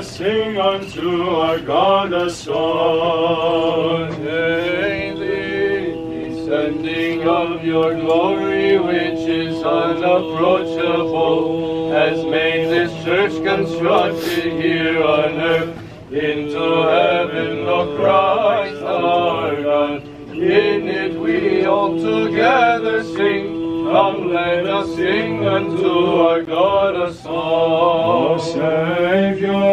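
Men's voices chanting an Orthodox liturgical hymn, a moving melody sung over a steady held low note, with brief breaths about halfway through.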